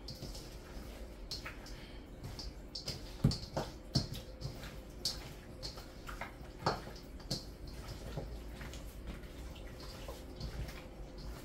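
Hands rubbing seasoning into raw chicken pieces in a stainless steel bowl: irregular wet squishing and smacking, with a few sharper knocks, the loudest about three seconds in.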